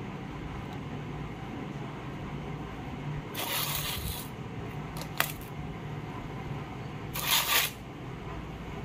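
Handling noise: two short rustling scrapes a few seconds apart, with a single sharp click between them, over a steady low hum.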